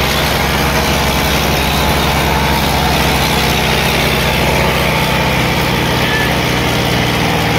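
Sonalika DI-750 III RX tractor's diesel engine running steadily at high throttle under heavy load, pulling against a second tractor in a tug-of-war.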